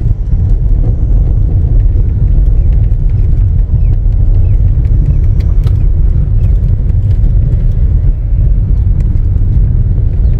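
Car driving on a rough, unpaved road: a loud, steady low rumble.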